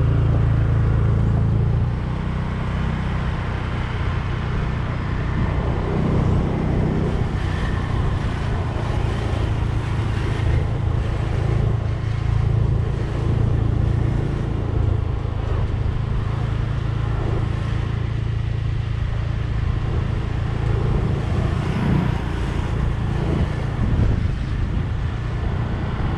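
A vehicle's engine droning steadily while driving along a street, with road and tyre noise over it; it is a little louder for the first two seconds, then settles.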